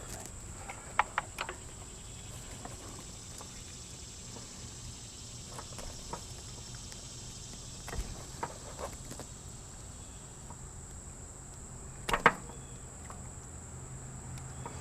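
Occasional short clicks and knocks of hand tools and metal hose fittings while the power steering hoses are taken off, the loudest a sharp knock about twelve seconds in. A faint steady hum runs underneath.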